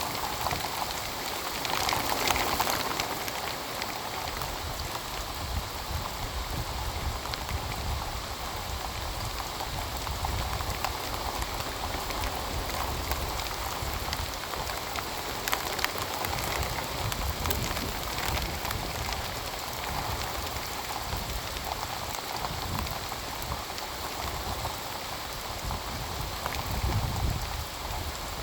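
Heavy rain pouring down steadily, an even hiss of drops striking surfaces, swelling louder about two seconds in and again near the end.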